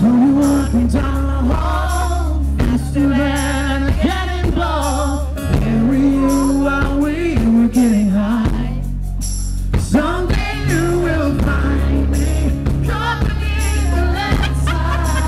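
Live acoustic rock performance: a man singing lead, with held, wavering notes, over two strummed acoustic guitars, amplified through a PA system.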